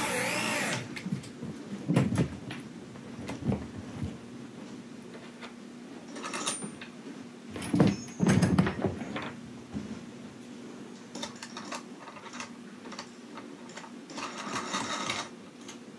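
Makita electric drill boring through attic plywood, stopping and spinning down within the first second. Then scattered knocks and thuds as tools and a steel eye bolt are handled on the plywood floor, over a faint steady hum.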